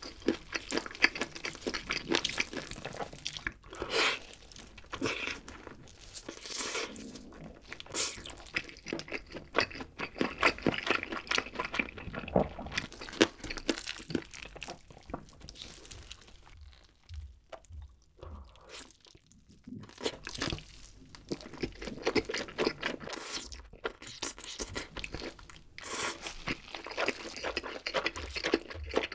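Close-miked mouth sounds of eating barbecue chicken wings and cheesy pizza: chewing and biting with many quick crunchy crackles. It goes quieter for a few seconds just past the middle.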